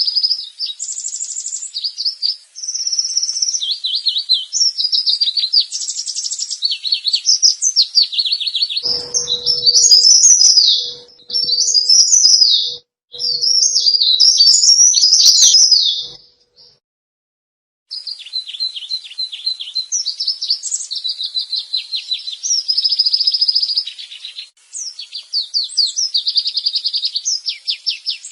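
Cikrak daun (leaf warbler) calling busily: fast, high chirps and twittering trills in quick runs, with a break of about a second and a half just past the middle.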